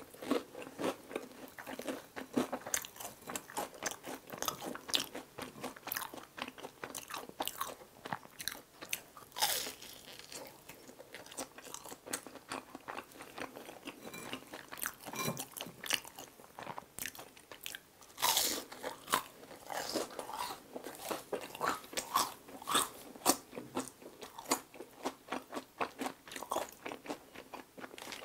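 Chewing and crunching of deep-fried shrimp toast (menbosha): a steady run of crisp crunches, with a denser burst of crunching about eighteen seconds in.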